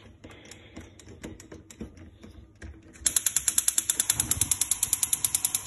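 Gas hob burner's electric spark igniter clicking rapidly, about a dozen sharp clicks a second, to light the burner. This starts about three seconds in, after a few scattered light clicks and knocks.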